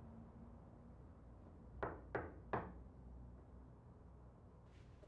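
Three knocks on a door in quick succession, about two seconds in.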